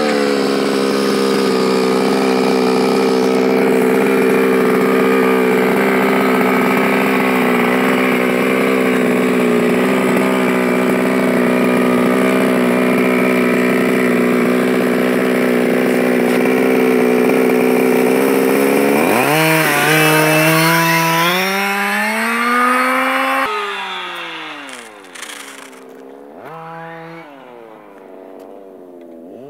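Two-stroke gasoline engine of a Losi 5IVE-T 1:5-scale RC truck running loudly at a steady speed. About nineteen seconds in it revs up with a rising pitch. From about twenty-three seconds it is much quieter, its pitch rising and falling as the truck drives away.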